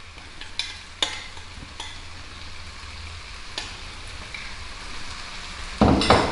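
Fusilli sizzling in a hot frying pan as ricotta cream is spooned onto them from a glass bowl, with a few light clicks of the spoon against the bowl. A louder knock comes near the end.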